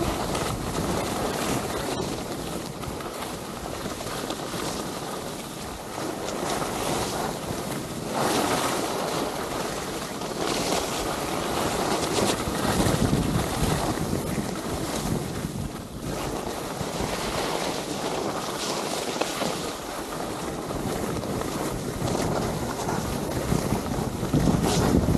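Wind rushing over an Insta360 X3 action camera's microphone while sliding downhill, mixed with the hiss and scrape of sliding over hard, chopped-up snow. The noise swells and eases in several surges.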